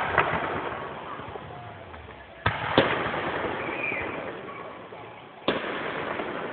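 Fireworks display: aerial shells bursting with sharp bangs, one at the start, two in quick succession about halfway through, and another near the end, each bang trailing off over a second or two.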